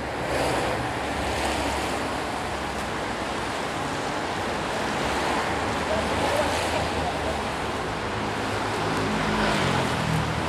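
Busy city street traffic: a steady wash of passing cars and tyre noise, with the engine hum of nearby vehicles, one of them changing pitch near the end.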